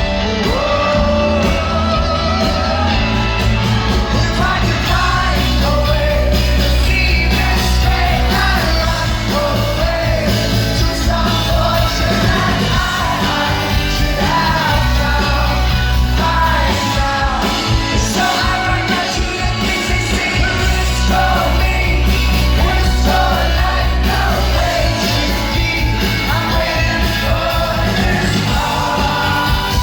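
Live rock band performance: singing over loud, steady bass and drums.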